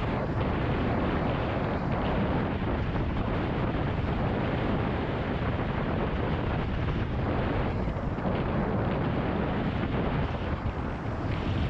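Steady wind noise rushing over a GoPro action camera's microphone during a road bike ride.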